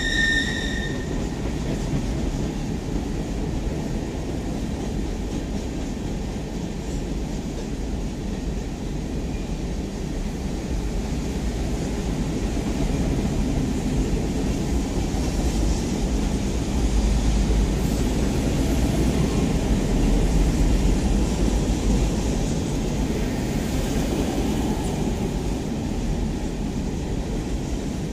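Freight train's hopper cars, gondolas and boxcars rolling past: a steady low rumble and rattle of steel wheels on rail, swelling somewhat about two-thirds of the way through.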